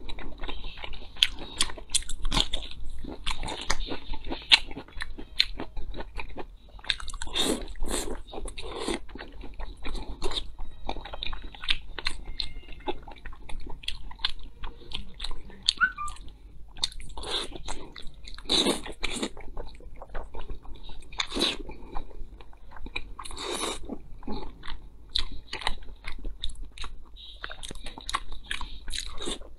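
A person chewing and biting food close to the microphone, with many short mouth clicks and a few louder crunching bites.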